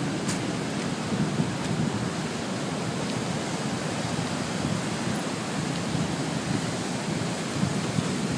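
Sea surf breaking and washing over flat shoreline rocks: a steady rushing that swells and ebbs, with wind rumbling on the microphone.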